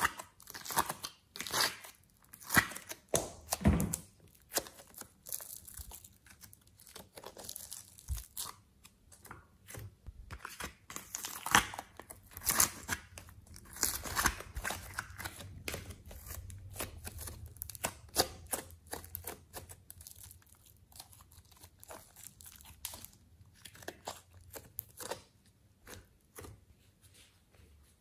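Soft coloured clay being pulled and scooped out of the compartments of a clear plastic tray by fingers: irregular crackling, tearing and squishing sounds.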